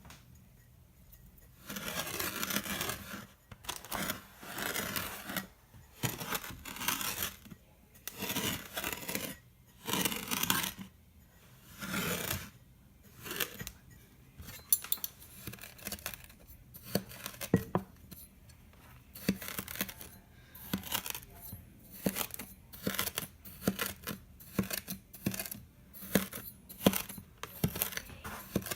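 White kinetic sand packed in a cup being pressed and crushed, giving a series of crunches. In the first half the crunches last about a second each with short pauses between them. In the second half they are shorter and come about once or twice a second.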